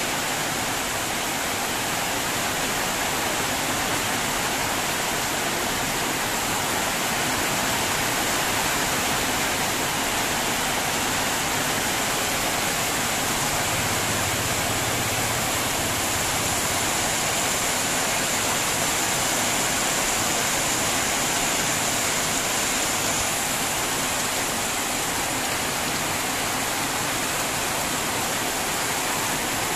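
Heavy rain pouring down steadily, a dense even hiss. About halfway through, a motorcycle tricycle drives past, its engine a faint low hum under the rain.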